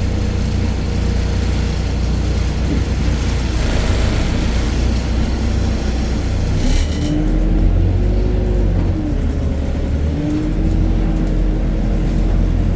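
A city bus's Deutz diesel engine and ZF gearbox running under way with a steady low rumble. Twice in the second half a whine rises and falls in pitch, and there is a brief hiss about seven seconds in.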